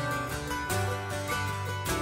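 Background music led by plucked string instruments, with held notes over a steady strummed rhythm.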